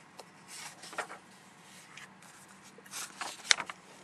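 A sheet of paper being handled and turned over, rustling in short bursts with a sharp crinkle about three and a half seconds in.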